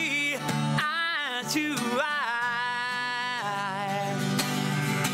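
A man singing a melody over a strummed twelve-string acoustic guitar, ending on one long held note. The voice stops about three and a half seconds in and the guitar carries on alone.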